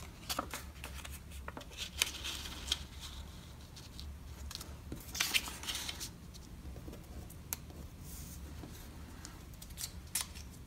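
Paper and thin card being handled: cut-out paper pieces rustle, slide and tap as they are folded and laid onto a folded card, in short irregular swishes and clicks.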